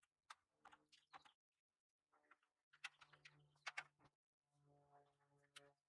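Near silence with a few faint, sharp plastic clicks spread out at irregular intervals, typical of trim push pins being popped open with a screwdriver.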